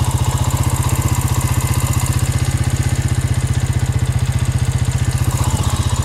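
A small engine idling steadily close by, with an even, fast putter.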